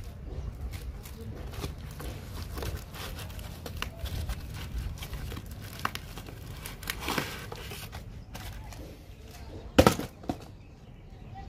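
Cardboard crackling and tearing as a battered box is pulled apart and worked off a white foam packing block. Near the end comes a loud thud and a smaller knock just after it, as the empty box hits a concrete floor.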